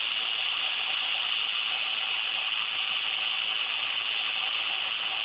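Homemade permanent-magnet motor running on its own, its rotor spinning with an even, high whirring hiss that does not change.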